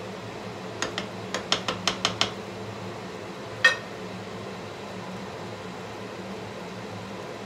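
A wooden spatula knocks against a frying pan about eight times in quick succession, then is set down on a plate with one sharper clack that rings briefly. A range hood fan hums steadily under it.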